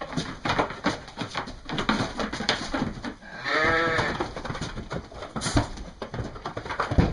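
An East Friesian ewe bleats once, a wavering bleat of about a second, a little over three seconds in, amid scuffling and knocks from sheep being caught and handled in a pen. A loud knock comes near the end.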